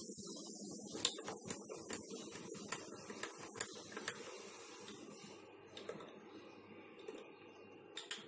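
Metal teaspoon clinking against a glass cup while stirring hot milk into beaten coffee. There is a run of light, irregular clinks in the first half, then only a few faint ones.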